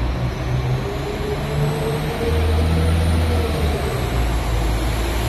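Northern Class 195 diesel multiple unit pulling out past the platform, its underfloor diesel engines working hard, with a whine that rises in pitch as it gathers speed.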